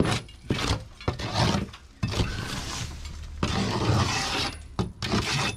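A flat bar scraping and raking dirt, twigs and old nest debris across a dusty surface. It comes as a run of short scrapes and knocks, with two longer scrapes in the middle.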